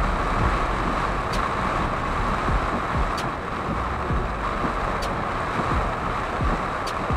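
Heavy rain drumming on a car's roof and windscreen, heard from inside the cabin, over the rumble of tyres on the wet road. The windscreen wipers tick faintly about every two seconds.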